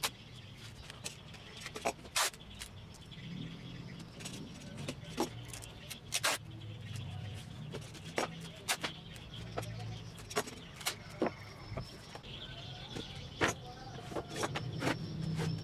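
Clear packing tape and a utility knife worked by hand on a plywood sheet: scattered sharp clicks and taps from the tape, knife and board, over a low steady background rumble.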